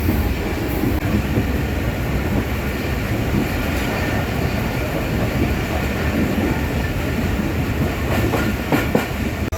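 Passenger train running along the track: a steady rumble of wheels and carriages, with a few sharper clacks near the end.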